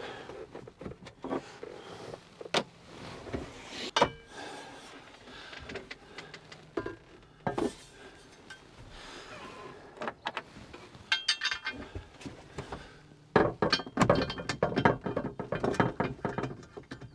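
Hand tools and metal fittings being worked while a bracket is bolted up: scattered metallic clinks and knocks of a spanner on bolts, a quick run of rapid clicks about eleven seconds in, and a busier stretch of clattering near the end.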